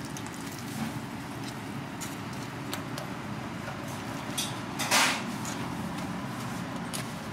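Metal tongs clicking and scraping on a griddle and a perforated steel rack as a hotteok is turned in shallow oil and lifted out, with the loudest scrape about five seconds in. Under it, oil sizzles faintly over a steady low background rumble.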